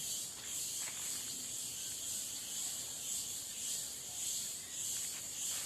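Cicadas singing: a high, continuous buzzing chorus that swells and fades in an even pulse, a little under twice a second.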